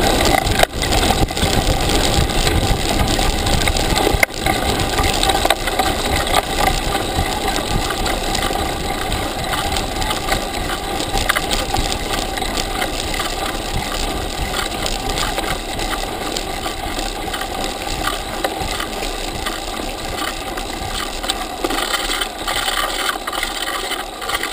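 Mountain bike descending a rough dirt track: steady wind rush on a bike-mounted camera's microphone, with the frame and knobby tyres rattling over the ground. It is a little louder in the first few seconds.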